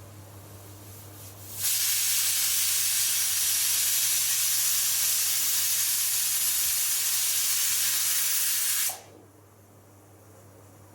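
Pressure cooker whistle venting steam: a loud, steady hiss that starts sharply about a second and a half in and cuts off abruptly about seven seconds later.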